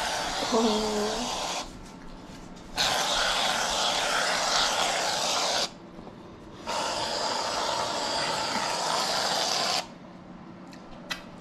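Aerosol whipped-cream can spraying in three long, steady hisses, one after another, each lasting about three seconds with short pauses between.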